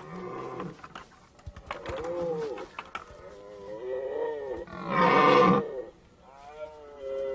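Red deer stags roaring during the rut: several roars in a row, the loudest and harshest about five seconds in.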